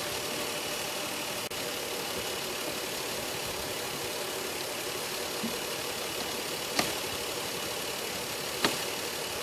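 Car engine idling steadily while the cooling system is topped off and burped of air pockets. Two short clicks sound in the second half.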